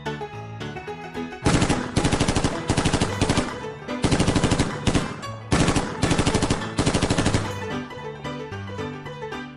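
Machine-gun sound effect: three long bursts of rapid automatic fire, starting about a second and a half in and stopping a couple of seconds before the end. Background music with plucky keyboard notes plays before and after the gunfire.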